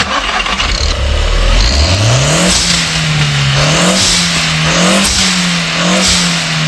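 Car engine revving. It runs low at first, climbs about two seconds in, then rises and falls in several blips.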